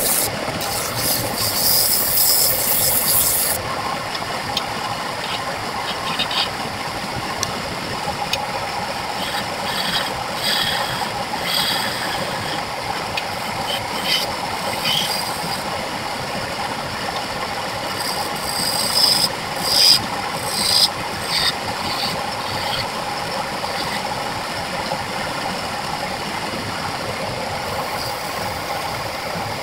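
Wood lathe running steadily while a turning tool cuts the spinning wooden workpiece, giving a hissing scrape in the first few seconds and again in short spells later on, loudest about two-thirds of the way through.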